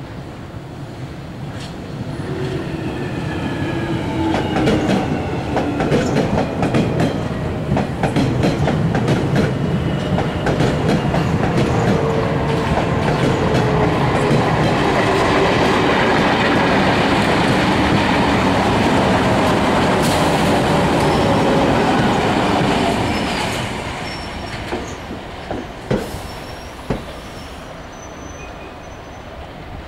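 A London Underground Jubilee line 1996-stock tube train running along the track, its wheels clicking over rail joints, with a whine that slowly falls in pitch as it slows. The sound drops suddenly about 23 s in, leaving a quieter train with a few knocks.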